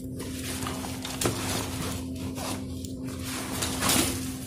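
Rustling and handling of a fabric backpack and the small accessories being packed into it, with a click about a second in and a louder rustle near the end, over a steady low hum.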